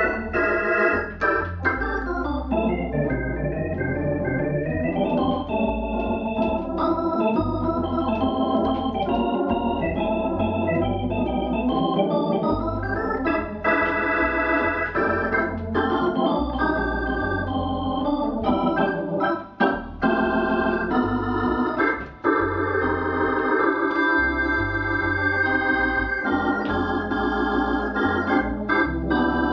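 Hammond X77 electronic organ played with both hands, chords and melody over low bass notes, the notes held with a wavering vibrato and quick runs of notes in the first few seconds.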